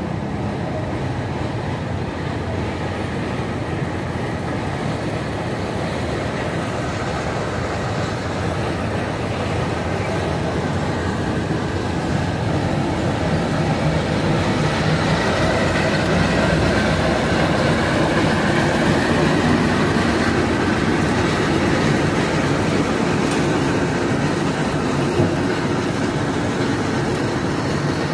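Small narrow-gauge diesel locomotive of a sugar-cane railway running steadily as it hauls loaded cane wagons along the track, its engine and rolling wagons growing louder about halfway through as it draws close, then easing slightly.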